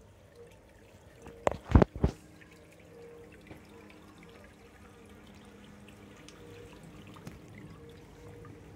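Faint, steady trickle of water running in a garden koi pond. About a second and a half in there are three loud thumps in quick succession.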